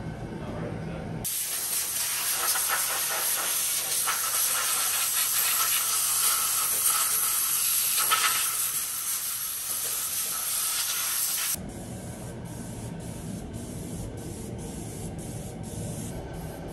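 Air-powered spray gun spraying oil undercoating: a steady hiss that starts about a second in and cuts off abruptly about ten seconds later, over a low hum before and after.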